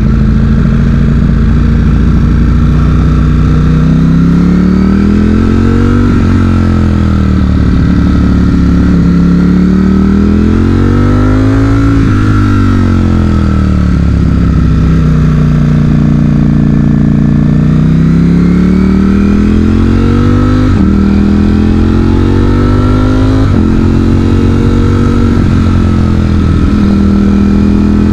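Ducati Streetfighter V4's V4 engine pulling through the gears: its pitch rises under throttle and drops with each upshift or easing off, several times over. The engine is being run in, so it is kept below 6,000 rpm.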